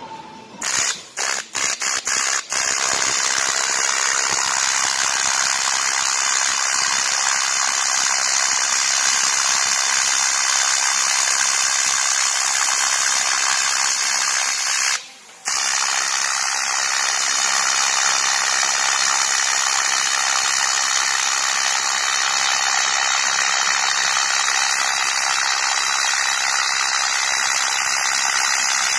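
AC TIG welding arc on aluminum: a few short arc strikes in the first couple of seconds, then a steady buzz with hiss. It breaks off once for under a second about halfway through, then runs on.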